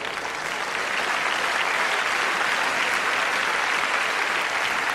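Large theatre audience applauding steadily after a punchline.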